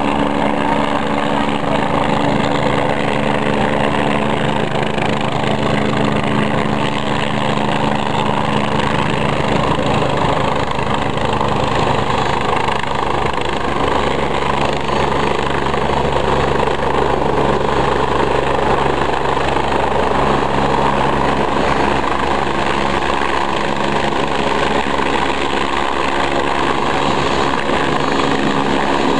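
Helicopter running on the ground, its engine and rotor making a loud, steady drone whose tone shifts slightly about ten seconds in.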